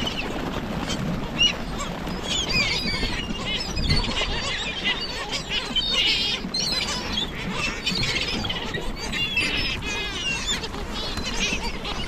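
A large flock of gulls calling over one another: many short, curving cries that overlap without a break, as the birds crowd in for bread tossed onto the water.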